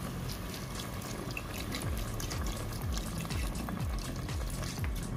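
Water pouring in a steady stream into an aluminium pressure cooker, splashing onto mutton pieces and their juices, as water is added to pressure-cook the mutton tender.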